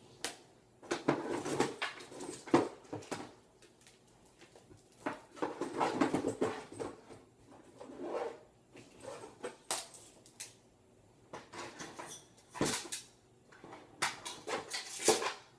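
Rummaging through a box of belongings: things rustling, knocking and clattering in repeated bursts with short pauses between.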